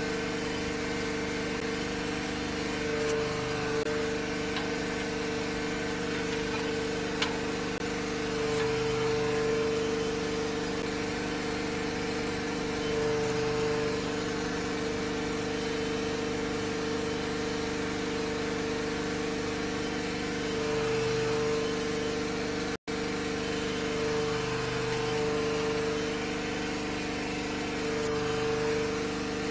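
Electric drain-cleaning machine's motor running steadily, spinning a cable that is being fed into a catch basin against a hard blockage, its hum swelling every few seconds. The sound cuts out for an instant about two-thirds of the way through.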